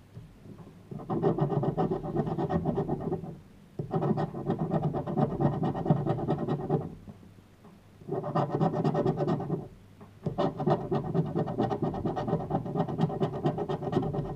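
Scratch-off lottery ticket being scraped with a hard black scraper, the coating rasping off in quick back-and-forth strokes. It comes in four long stretches of scratching with short pauses between them.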